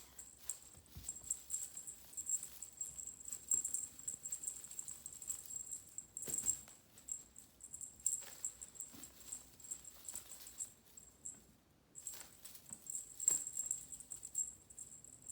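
Irregular light rattling and tapping clicks, with one or two faint, short kitten mews.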